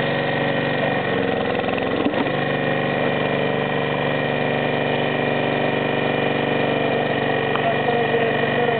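A hydraulic log splitter's 159 cc four-stroke petrol engine running steadily, driving the hydraulic pump while the wedge is pushed down into a log and splits it. A single short knock comes about two seconds in.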